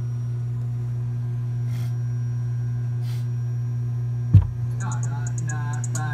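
Steady, loud electrical hum through a car sound system's speakers, a single thump about four seconds in, then music starting to play through the system near the end.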